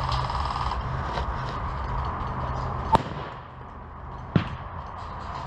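Two sharp cracks of airsoft gunfire about a second and a half apart, over a steady mechanical hum whose low rumble drops away just as the first crack sounds.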